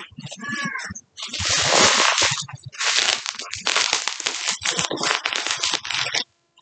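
Plastic bubble wrap being pulled and handled around a parcel: crinkling and crackling full of small clicks, stopping abruptly about six seconds in.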